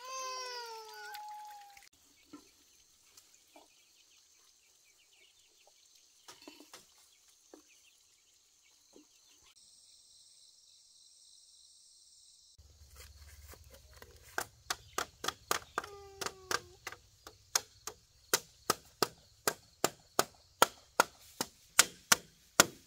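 A blade chopping bamboo with regular sharp strikes, about two a second, starting a little past halfway and growing louder toward the end.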